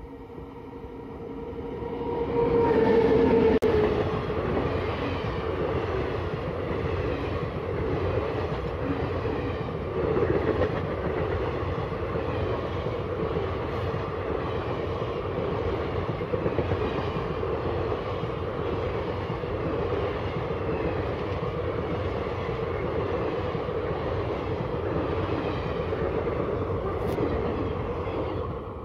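An electric-hauled Indian passenger express passing at speed. The locomotive comes up loud and is loudest as it passes about three seconds in, its tone dropping in pitch. Then the long rake of coaches rattles past steadily, its wheels clattering over the rail joints.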